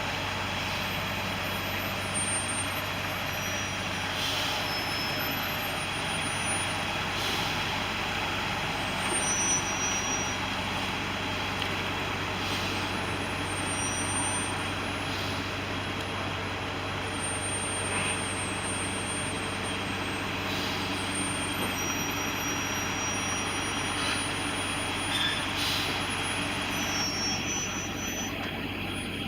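Caterpillar excavator's diesel engine running steadily under load, a constant low drone. The owner notes that this engine has a rapid oscillation in its RPM.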